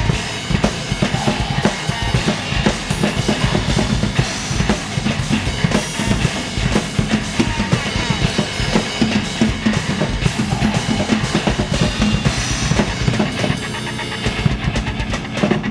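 Drum kit played fast and without a break, with rapid bass drum and snare strokes and cymbals, along with a rock song.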